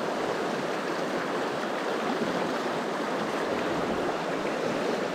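Rushing mountain stream running over rocks and through riffles: a steady, even wash of water noise.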